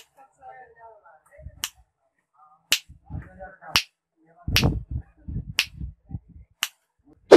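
Finger snaps, about eight, roughly a second apart, each one sharp and very short, made next to a CD4017 clap switch's microphone to toggle the light bulb on and off.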